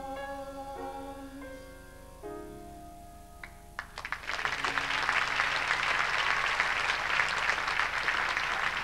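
Closing bars of a stage-musical song: held instrumental chords that step and fade. About four seconds in, audience applause breaks out and continues.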